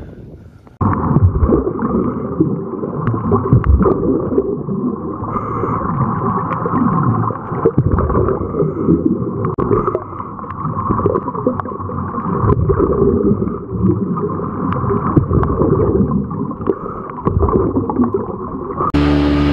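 Muffled gurgling and bubbling water, as heard with the microphone underwater, starting abruptly about a second in and cutting off suddenly near the end.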